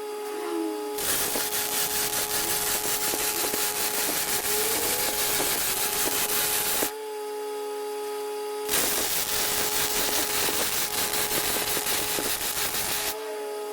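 Welding on a steel air tank: two long stretches of dense crackling sizzle, each about five seconds, stopping briefly in between. A steady hum is heard in the pauses.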